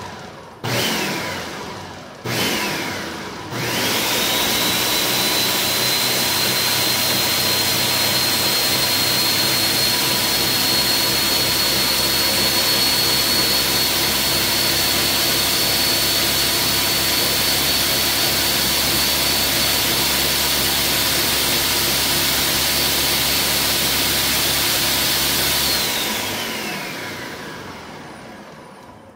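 Countertop blender pulsed twice in short bursts, each spinning down, then run continuously with a steady high whine, blending soaked fenugreek gel with water; near the end it is switched off and winds down.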